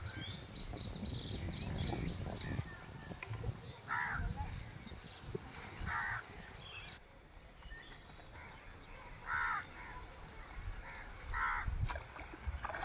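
Crow cawing: short harsh caws repeated every couple of seconds.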